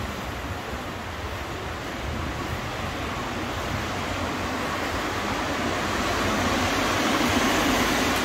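Steady rush of road traffic and tyre noise, slowly swelling to its loudest near the end as a car passes close by.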